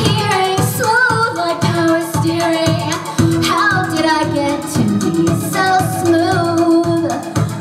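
A woman singing into a microphone over amplified backing music with a steady beat, in a live pop performance.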